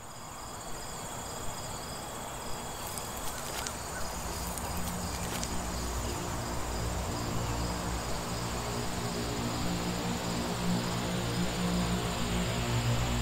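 Insects chirring steadily, with a rhythmic pulsing chirp beneath the high drone. A low droning music tone swells in from about five seconds and grows gradually louder.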